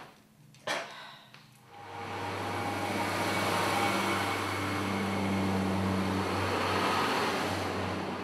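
A sharp knock about a second in, then a Northern Rail diesel passenger train moving past close by: a steady engine drone with wheel and rail noise on top, starting about two seconds in.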